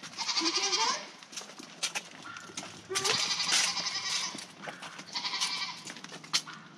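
A young goat bleating three times, a couple of seconds apart.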